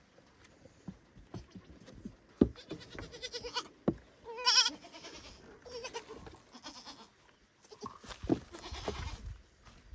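Baby goat bleating, several calls for its mother, the loudest a wavering call about halfway through. Sharp knocks come in between the calls.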